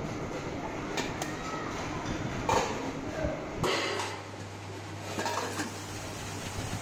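Brass plate clattering and scraping against a hand-held blade tool, with a few sharp metallic clinks. About three and a half seconds in, this gives way to the steady low hum of a lathe spinning a brass plate.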